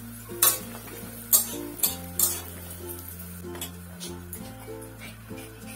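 A metal spatula stirring and scraping lentil dumplings (dal bori) frying in mustard oil in a metal kadai, with four sharp scrapes in the first half and the oil sizzling. Background music plays throughout.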